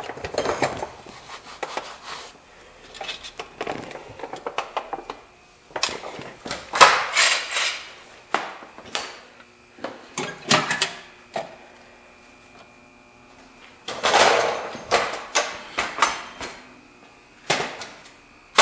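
Irregular clanks, knocks and scrapes of tools and metal parts being handled, coming in scattered bursts with quiet gaps between.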